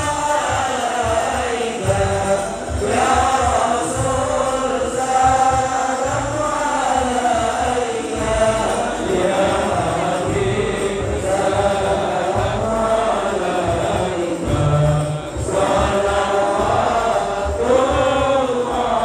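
A congregation chanting an Arabic sholawat, a devotional song in praise of the Prophet Muhammad, together in a long, rising and falling melody.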